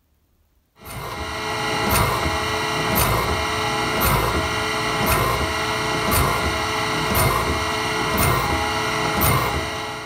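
Wood-Mizer band sawmill running, its band blade spinning on the wheels: a loud steady mechanical whine with a surge about once a second. It starts suddenly about a second in.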